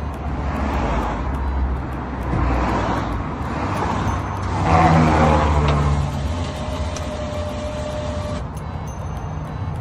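A motor vehicle running, a steady low engine rumble that swells briefly about five seconds in.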